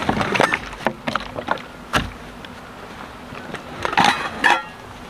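Rummaging in a nylon rucksack as gear is pulled from its pockets: fabric rustling with short sharp clicks and knocks, a louder cluster of rustling about four seconds in.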